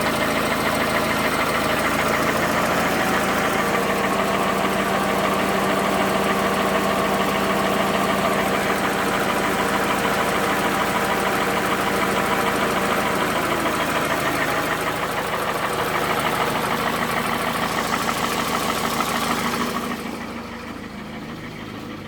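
Toyota Camry's 2AZ 2.4-litre four-cylinder petrol engine running at idle with a knocking clatter. The mechanic puts the knock down to the balance shafts and takes the piston group for worn out. The sound drops noticeably about two seconds before the end.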